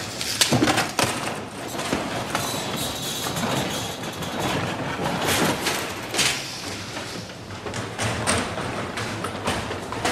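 Chase sound effects on a hard floor: hurried footsteps and skate wheels with irregular thumps and knocks over a dense, busy noise.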